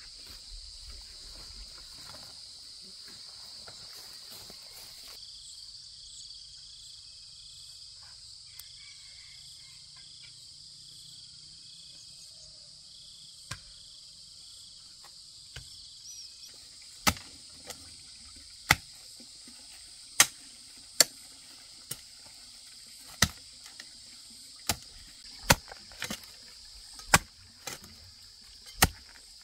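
Steady high-pitched insect chorus, with some rustling for the first five seconds. From a little over halfway through, a dozen or so sharp knocks come irregularly, about one a second; they are the loudest sounds.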